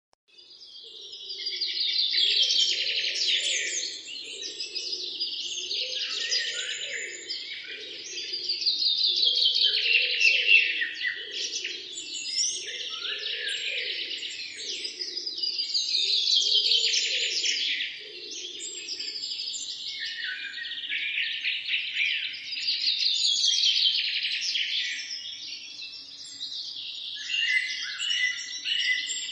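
A flock of small birds chirping and chattering together in a dense, continuous chorus, starting about half a second in and swelling and fading in waves every several seconds.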